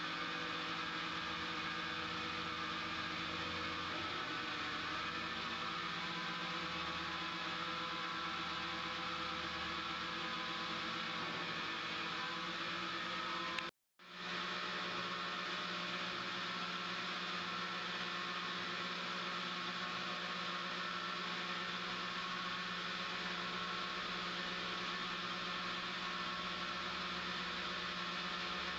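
HH Roberts 14x40 CNC lathe running under power: a steady whirring machine hum with several steady tones. It cuts out for a split second about halfway through, then resumes unchanged.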